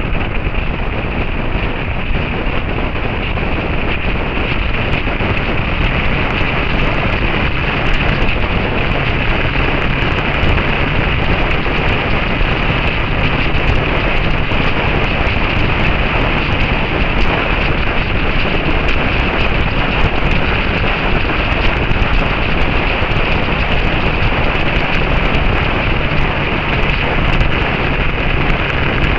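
Steady, loud wind rush over the microphone of a camera on a motorcycle being ridden at road speed, with the motorcycle's engine running steadily underneath.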